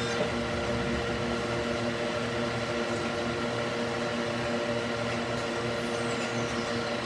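Electric cooling fan fitted in a wooden box, running steadily: a continuous whir with a steady electrical hum under it.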